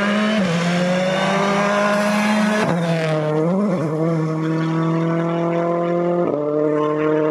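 Rally car engine at high revs, accelerating hard. The pitch climbs steadily, then drops and wavers at a gear change near the middle and holds high, with another sharp shift about six seconds in.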